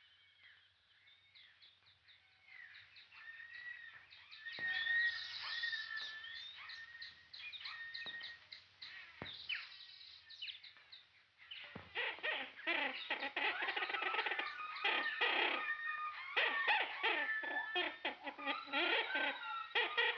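Jungle sound effects on an old film soundtrack: a chorus of bird calls, chirps and whistles. They are sparse and faint for the first few seconds, then thicken into dense, louder chattering calls in the second half, over a low steady hum.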